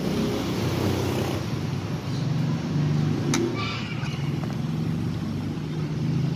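Steady rumble of road traffic, with one sharp click a little past halfway.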